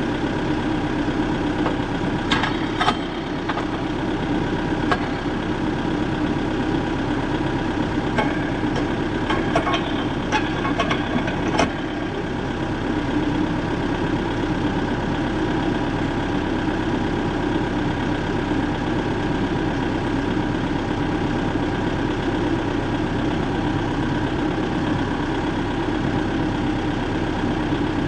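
Engine running steadily, with a few sharp clicks and knocks near the start and again about ten seconds in.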